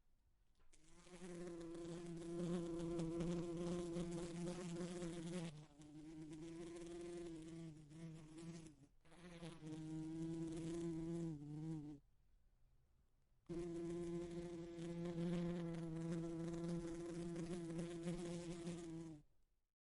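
A bee buzzing against a window pane: a steady buzz that wavers in pitch, in bouts of a few seconds broken by brief gaps, with a longer pause of about a second and a half some twelve seconds in.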